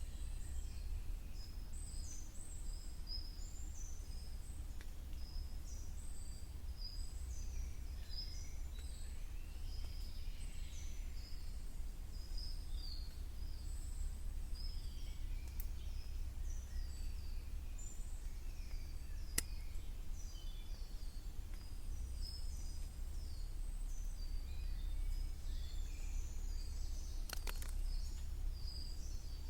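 Several wild birds chirping and calling in a spring forest: many short, high, falling notes follow one another throughout, over a steady low wind rumble. A few sharp ticks stand out, one about two-thirds of the way in and another near the end.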